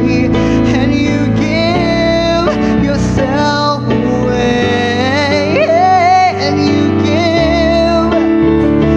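Man singing while accompanying himself on a Kawai digital piano: a sung melody with sliding and held notes over sustained piano chords.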